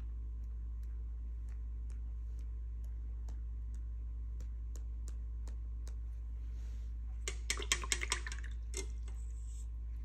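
A steady low hum with faint ticking about twice a second. About seven seconds in comes a brief burst of rapid clicking and scratching, the loudest sound, followed by one more click and a short hiss.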